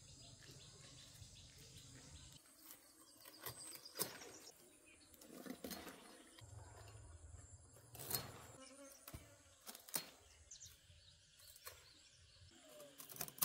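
Faint outdoor ambience with a few birds chirping and several light knocks or taps scattered through it.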